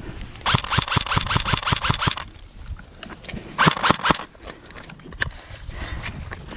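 Airsoft gun firing a quick string of about eight to nine shots, roughly five a second, then a shorter cluster of shots a little later.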